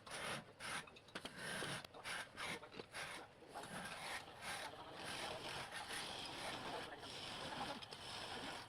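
A cutting tool scraping and rasping against wood in uneven strokes, becoming more continuous about halfway through.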